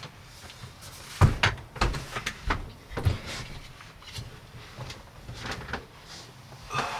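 Irregular knocks, clicks and clunks of objects being handled, the loudest a dull thud about a second in, followed by a scatter of lighter knocks.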